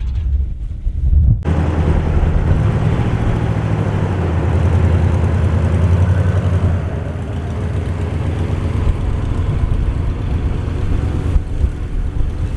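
The 1973 Chevy one-ton truck's 350 V8 running steadily; the sound comes in suddenly about a second and a half in.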